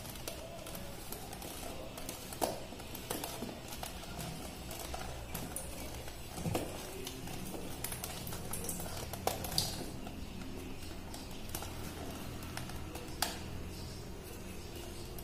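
Scattered sharp plastic clicks and light scraping as the green top of a Panasonic water purifier is twisted by hand onto its cartridge housing, over a low steady hum.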